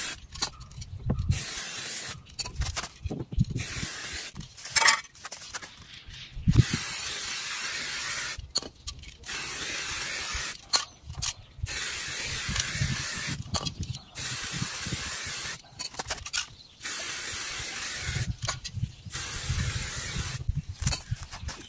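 Aerosol spray-paint cans hissing in repeated bursts of one to two seconds with short pauses between, as paint is sprayed through a leaf stencil onto a car door. Low knocks and handling sounds fall between the bursts, with two sharp knocks in the first third.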